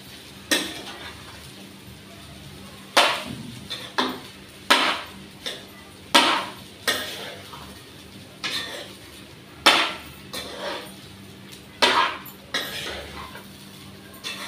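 Steel spoon scraping and clacking against a nonstick kadai as fried rice is stir-fried, a sharp knock every second or so, sometimes two or three in quick succession, over a low steady hum.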